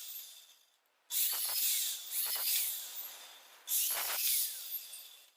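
Metal electrical conduit being cut: a few bursts of hissing, rasping cutting noise, each starting sharply and fading away, the first about a second in.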